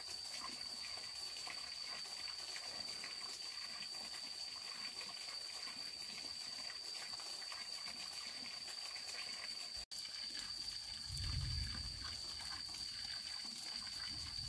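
Insects droning steadily at one high pitch over faint rustling and ticks of work among cut bamboo. The sound cuts out for an instant about two-thirds of the way through, and low muffled thumps follow near the end.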